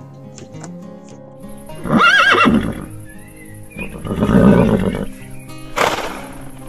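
Horse whinnying about two seconds in with a quavering call, then a second, lower and rougher call around four seconds in, over background music.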